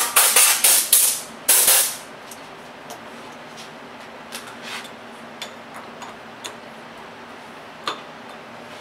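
Compressed-air blow gun fired in about five short, loud blasts, clearing aluminum chips from the freshly hole-sawed flat bar and the milling vise; the blasts stop about two seconds in. After that only a few light clicks are heard.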